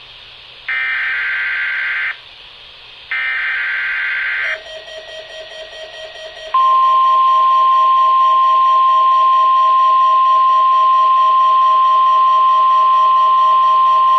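NOAA Weather Radio test alert: two harsh, buzzing bursts of the SAME/EAS digital header, each about a second and a half long. A quieter pulsing stretch follows, then the steady 1050 Hz warning alarm tone comes in loud about six and a half seconds in and holds.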